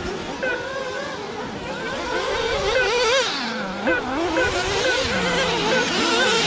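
Several 1/8-scale nitro RC buggy engines running and revving together, their high-pitched whines overlapping and constantly rising and falling.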